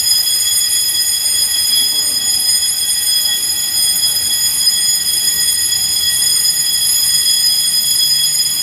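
Building alarm sounder being tested, sounding one continuous high-pitched tone, steady and unbroken.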